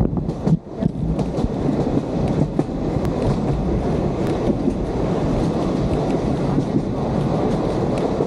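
Vintage Sóller railway train running along the track: a steady rumble of wheels on rail, with scattered clicks and knocks.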